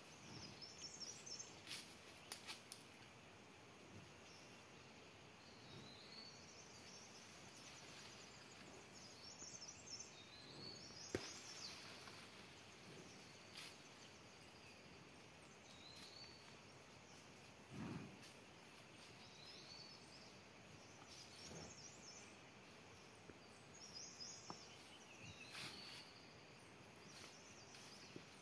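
Faint outdoor ambience: scattered short, high bird chirps over a quiet background, with a few sharp clicks and a brief rustle.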